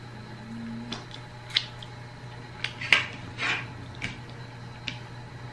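Close-up eating sounds from a meal eaten by hand: a handful of short, sharp clicks and smacks from chewing and fingers at the plate, the loudest about three seconds in.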